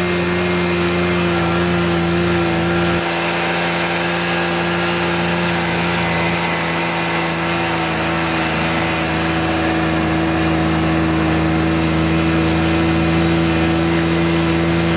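Snowmobile engine running at a steady pace, heard from the rider's seat, with a slight change in tone about three seconds in.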